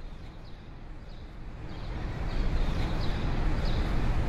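Outdoor nature ambience: a low, steady rush that swells about two seconds in, with small birds chirping over it.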